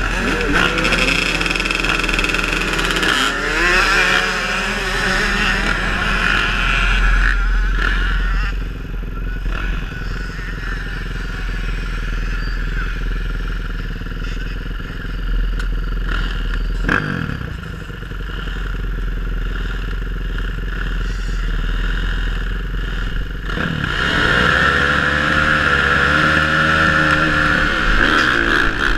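A line of motocross dirt bikes at the start gate, engines idling and being revved, the pitch rising and falling. The revving eases to a steadier idle through the middle and picks up again near the end as the riders ready for the gate drop.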